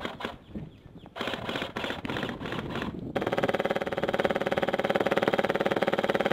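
Airsoft gun firing on full auto: rapid shots in short runs from about a second in, then a long unbroken burst of rapid shots from about halfway through.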